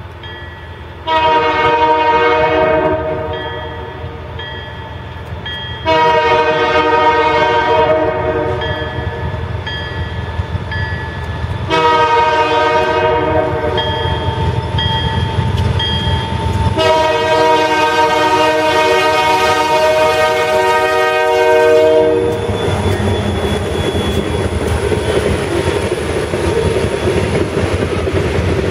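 Diesel locomotive air horn on a Canadian Pacific SD40-2 sounding four loud multi-tone blasts, the third shortest and the last held about five seconds: the long-long-short-long grade-crossing signal. From about 22 seconds the lead SD40-2 locomotives pass close by with a steady engine rumble and wheels on the rails.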